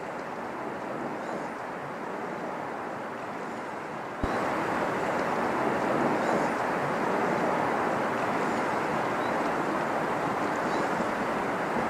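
Steady rushing of mountain waterfalls pouring down cliffs, growing louder about four seconds in.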